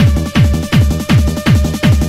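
Techno music: a steady kick drum on every beat, about 2.7 hits a second, each kick sliding down in pitch, under a held synth note.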